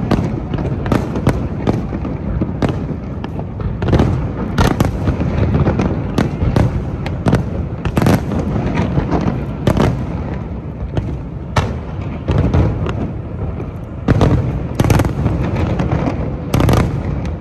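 Fireworks display: aerial shells bursting in an irregular, rapid string of sharp bangs, about one a second or faster, over a continuous low rumble.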